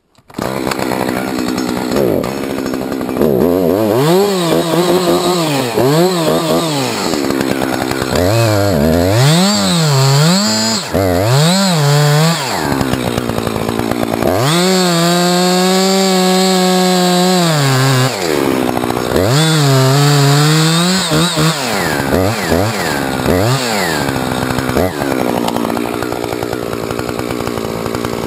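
Husqvarna 357 XP two-stroke chainsaw cutting through a felled fir log, its engine note rising and falling repeatedly as the throttle is worked. It holds a high pitch for a few seconds in the middle, then runs steadier and lower near the end.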